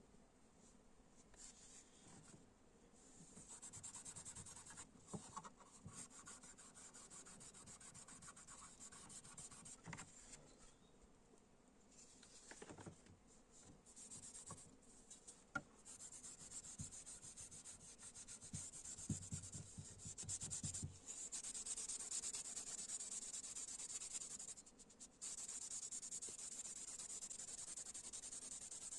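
Quiet scratchy rubbing of an abrasive worked by hand against the knife, in strokes of varying length that stop and start.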